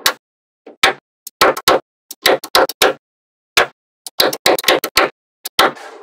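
Small metal magnetic balls clicking and clacking together in quick clusters of sharp clicks as blocks of magnet balls are pressed and snapped into place.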